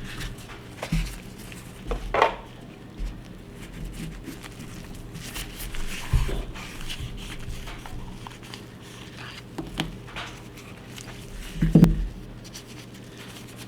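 Irregular handling sounds of pistol-barrel cleaning: light clicks, short scrapes and knocks as the 1911 barrel and cleaning tools are handled and set down, the loudest knocks about two seconds in and near the end.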